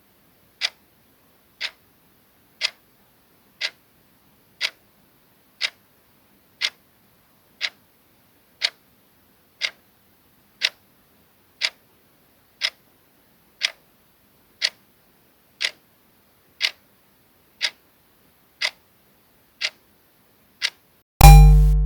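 Clock ticking sound effect for a countdown timer, one sharp tick a second. Near the end, as the countdown runs out, it gives way to a sudden, much louder, low-pitched sound.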